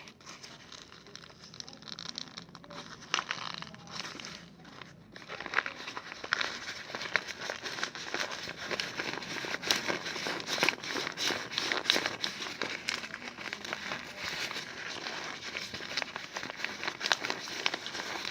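Glue-and-shaving-foam slime being stirred and worked in a pot, a continuous wet crackling full of small clicks. It is sparse at first and turns steady and busier about five seconds in.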